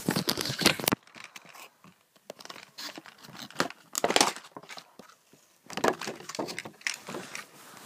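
Packaging being handled and opened: paper and cardboard crinkling and tearing in irregular bursts of rustling.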